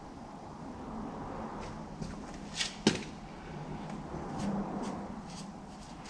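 Hand handling of a tractor's engine oil dipstick and rag: a short rustle, then one sharp metal click a little under three seconds in, followed by a few light ticks.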